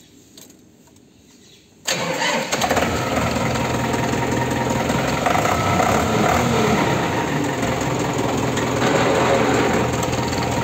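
Diesel farm tractor engine starting about two seconds in, catching abruptly, then running steadily.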